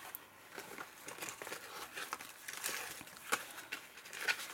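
Paper and card rustling as the flaps and pages of a handmade lap-book journal are handled and turned, with a few soft clicks and taps.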